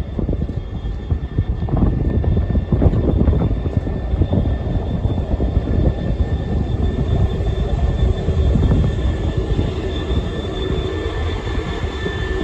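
Train passing through the station: a loud continuous rumble with a steady high whine that grows stronger in the second half.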